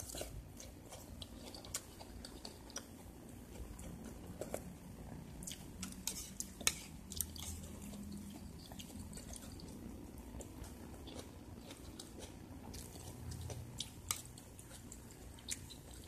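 A person eating close to the microphone: faint chewing, with scattered light clicks and scrapes of a metal spoon on a plate of rice.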